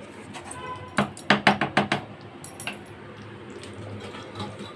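A metal spatula clanking against the rim of a steel kadai: about six quick strikes within a second, then a single clink a moment later.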